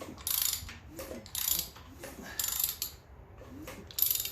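Ratchet wrench clicking in short back-and-forth strokes, about one burst a second, four times.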